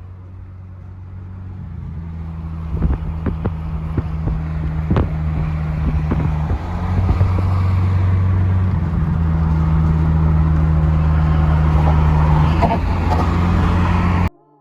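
Car engine running at a steady speed, growing louder over the first few seconds and then holding, with a few sharp clicks a few seconds in; it cuts off abruptly near the end.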